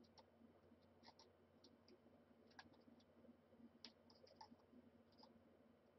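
Near silence with faint, scattered small clicks of a screwdriver turning a small screw to fasten the earpiece onto an Oculus Rift headset.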